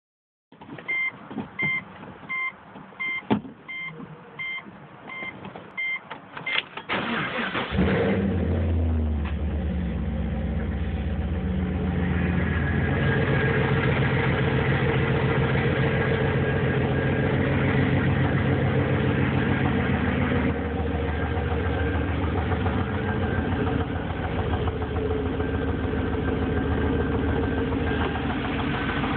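A car's warning chime beeps over and over with a few clicks. About seven seconds in, the engine cranks and starts, then idles with a steady rhythmic knock that the owner's mechanic calls rod knock; the owner suspects the lifters, after the oil ran low.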